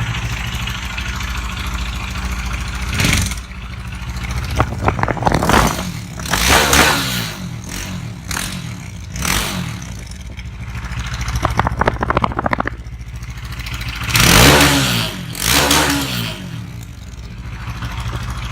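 Bajaj Dominar 400's single-cylinder engine, exhaust running without its chamber, revved in a series of short throttle blips that rise and fall back to a loud idle between them.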